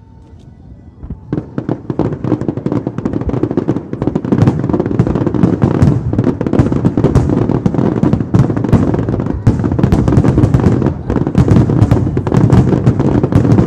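Aerial fireworks display: a dense, continuous barrage of bangs and crackling that builds up over the first couple of seconds and then keeps going thickly.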